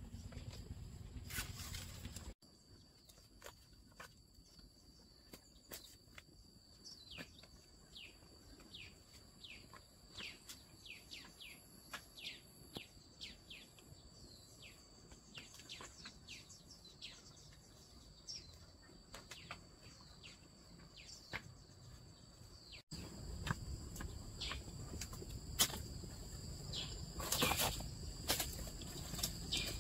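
Outdoor rural ambience: many short, falling bird chirps over a steady high-pitched drone. About 23 seconds in there is a cut to louder rustling and knocks, like footsteps.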